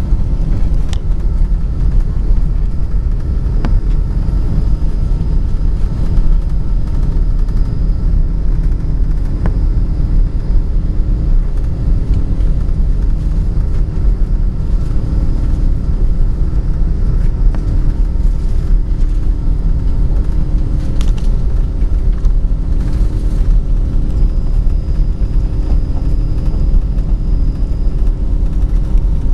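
Inside the cabin of a Singapore Airlines Airbus A380, the loud steady rumble of its Rolls-Royce Trent 900 jet engines and the wheels rolling along the runway, with a faint steady engine hum over it.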